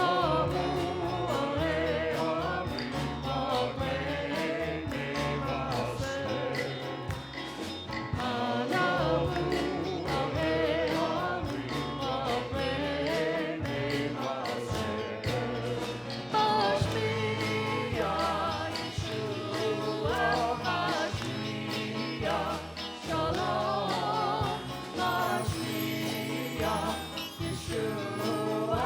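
Congregational worship song: voices singing a melody over a band with bass and a jingling percussion part such as tambourine.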